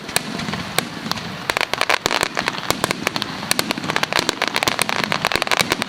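Aerial fireworks bursting: a dense, irregular crackle of many sharp pops, with a steady rumbling haze beneath.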